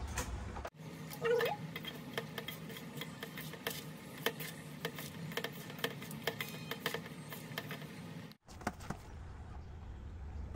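Hands squeezing and tossing shredded cabbage with flour in a steel bowl, making many small, irregular crackling clicks as the batter for cabbage fritters is mixed.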